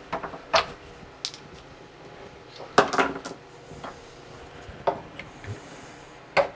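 Aluminum bench dogs being worked out of the dog holes in an MDF spoil board and set down on the wooden bench: several sharp metallic clinks and knocks, spaced out over a few seconds.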